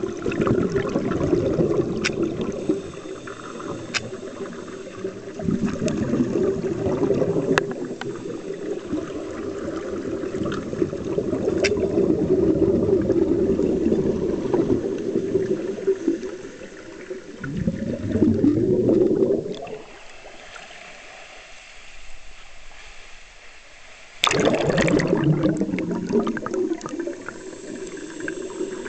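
Scuba divers' exhaled bubbles from their regulators, heard underwater: an uneven low bubbling rush that swells and fades with each breath. After a quieter spell it comes back suddenly and loudly a few seconds before the end.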